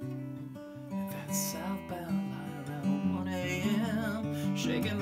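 Steel-string acoustic guitar strummed and picked in a steady folk accompaniment, an instrumental break between sung lines.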